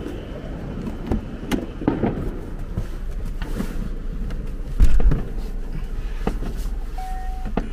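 Car engine running, a low steady rumble heard inside the cabin, with scattered clicks and knocks. A dull thump comes about five seconds in, and a short single beep near the end.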